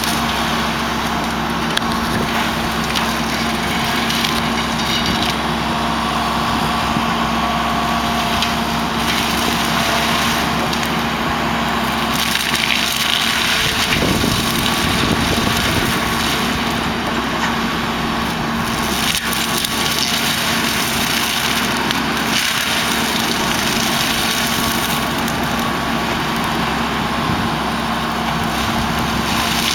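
John Deere 160D LC excavator running an AFE RDM mulcher head, the spinning rotor drum humming steadily over the diesel as it chews and splinters brush and wood, with a heavier bout of shredding about halfway through.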